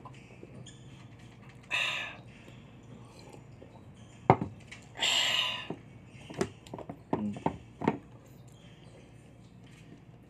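Sounds of eating and drinking at a table: two short, breathy exhales after drinking juice, and one sharp knock from a glass set down on the table. This is followed by a run of small crackling clicks as a hand tears into the crisp skin of a roast chicken.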